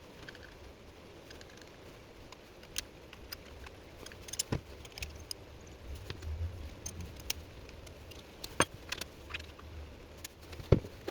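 Scattered light clicks, taps and knocks of small hard objects being handled, with a few sharper knocks later on.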